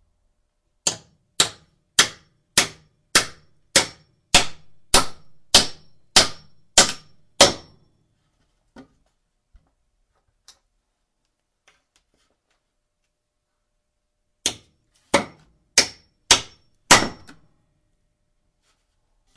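Hammer driving a nail, with a brief metallic ring after many strikes. It strikes steadily about twice a second for about a dozen blows, then gives a few light taps, then a second run of five blows.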